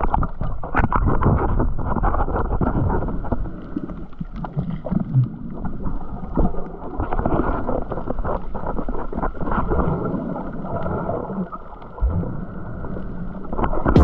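Muffled underwater sound from a submerged camera while snorkeling: a steady low rush of water, dull and cut off in the highs, scattered with many small crackles and clicks.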